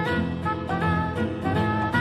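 Live jazz-fusion band playing: melody notes over a bass line, with frequent drum and percussion strikes.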